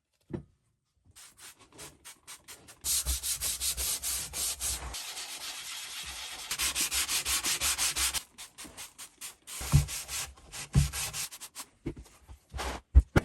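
A vise part being scrubbed by hand, with quick back-and-forth rubbing strokes that start about three seconds in and stop around eight seconds, followed by a few knocks as parts are handled.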